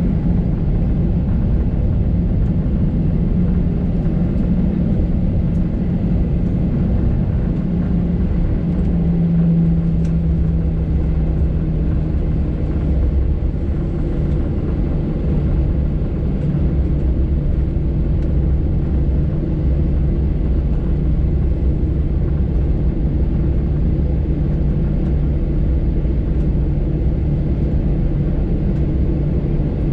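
Cabin noise inside an Airbus A319 taxiing after landing: the engines at idle give a steady hum, over a low rumble from the airframe and wheels. About ten seconds in, the hum drops slightly in pitch and then holds steady.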